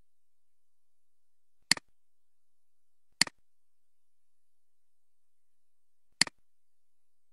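Computer mouse clicking: three single clicks with uneven gaps, each a sharp press followed straight away by a fainter release.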